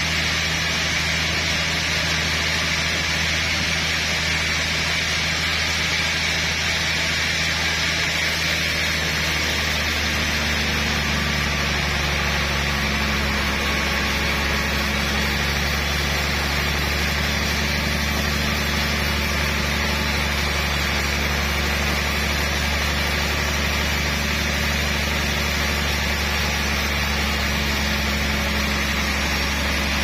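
Hai Tai Iron Works band sawmill running steadily while its blade rips lengthwise through a trembesi (rain tree, Samanea saman) log: a continuous sawing hiss over a steady machine hum, the low hum shifting slightly about ten seconds in.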